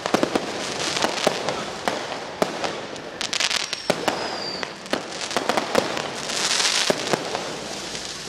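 Fireworks going off: many sharp bangs at irregular intervals, with stretches of crackling hiss and a brief falling whistle about four seconds in.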